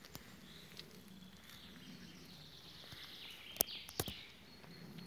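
Forest ambience: faint bird calls over a low steady background, with two sharp snaps, the loudest sounds, about three and a half and four seconds in, from footsteps on dry leaf litter and twigs.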